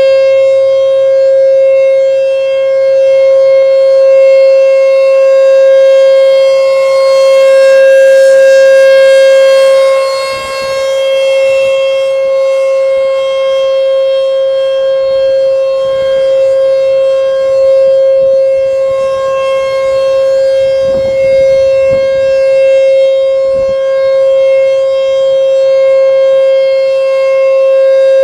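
American Signal T-128 rotating outdoor warning siren sounding a loud, steady single tone during a test. Its loudness swells and fades slowly as the rotating horn sweeps around, with a brief dip about ten seconds in.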